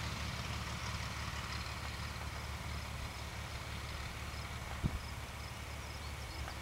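Socata TB-20 light plane's six-cylinder piston engine running as the aircraft moves along the runway: a steady low drone, with a brief thump about five seconds in.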